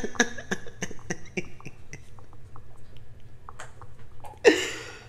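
A woman laughing: quick breathy pulses of laughter that trail off, then one louder breathy burst near the end.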